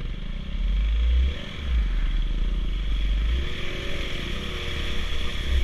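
Dirt bike engines running and revving as the bikes ride into a flooded trail, with water splashing and heavy low rumbling on the microphone.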